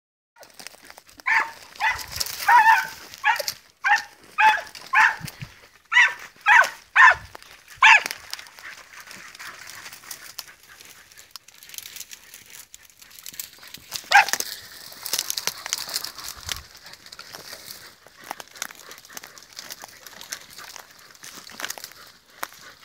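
Podenco hunting dogs yelping: a rapid run of about a dozen sharp, high barks over the first eight seconds, then one more loud yelp about fourteen seconds in. Dry scrub rustles and crackles throughout.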